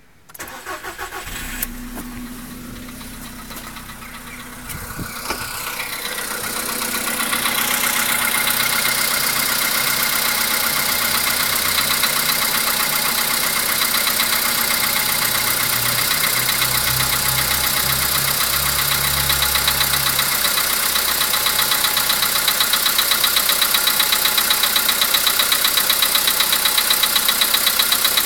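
VW Polo sedan's CFNA 1.6-litre four-cylinder petrol engine cranked by the starter and catching within about a second, then idling from a cold start with a steady, rhythmic engine knock.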